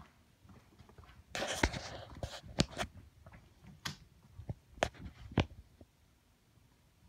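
Footsteps on a wooden floor: a burst of rustling about a second in, then a handful of sharp, irregular taps and knocks.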